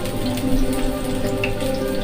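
Water running from a tap into a sink, a steady hiss under background instrumental music.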